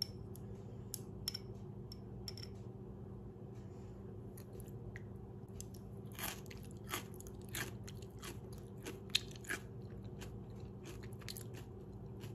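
A person biting and chewing crisp pickled vegetables (dưa món: carrot, daikon, kohlrabi and papaya in a fish-sauce brine), giving irregular crunches. The crunch is the sign that the pickles have stayed crisp.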